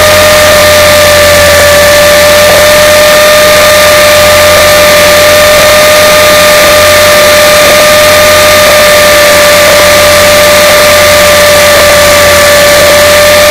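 Electric RC helicopter (Align T-Rex 450SE V2) in flight as picked up on board: a steady, high motor whine at an unchanging pitch under loud hiss.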